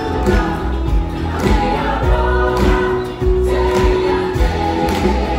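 A live stage-musical ensemble, several cast members singing together over a band with a steady beat.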